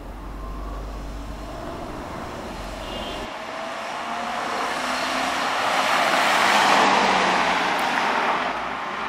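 2008 Ford F-250 pickup with its 5.4-litre V8 driving past: engine and tyre noise build as it approaches, loudest about seven seconds in, then ease off slightly as it pulls away.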